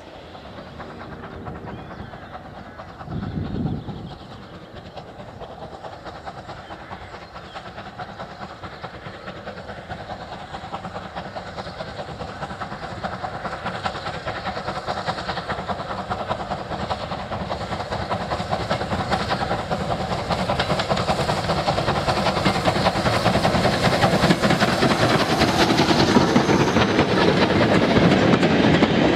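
Bulleid light pacific steam locomotive hauling a goods train, approaching and then passing close. The sound grows steadily louder as it nears, with the wagons' wheels clicking over the rail joints near the end.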